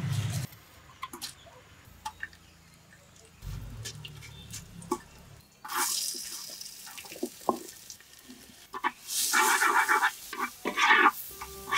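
A few light crackles from cumin seeds in hot coconut oil in a clay pot. About six seconds in, a sudden sizzle as chopped onions are tipped into the oil. Near the end, a louder crackling sizzle with a wooden spoon scraping the pot as the onions, green chilies and spices are stirred.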